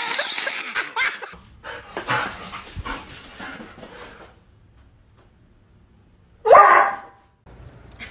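A dog barks once, short and loud, about six and a half seconds in. Before it there is a burst of loud noise in the first second and scattered softer knocks and rustles.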